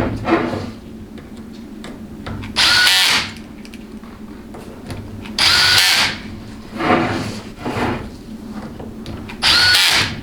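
Small power driver running bolts into a transmission valve body in three short bursts of about half a second each, a few seconds apart, with light tool and parts handling between.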